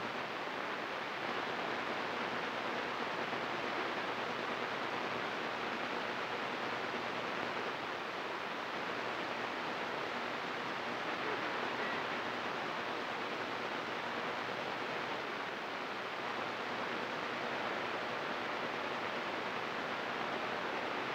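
Steady hiss of static from a CB radio receiver between transmissions, the band noise passing through with the squelch open.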